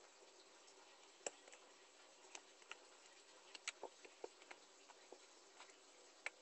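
Grey glitter slime being poked and pressed by fingertips, giving faint, irregular little clicks and pops, about a dozen, one every half second or so.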